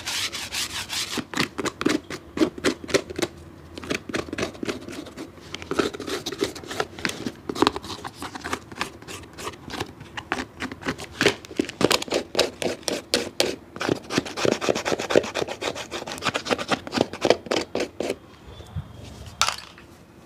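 Quick scrubbing strokes on a shoe, several a second, with a couple of brief lulls. The strokes stop near the end, followed by a single sharp tap.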